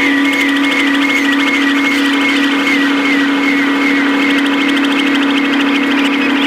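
Electronic noise music: a steady, loud drone with a looping chirp repeating about twice a second over a fine, rapid crackling texture.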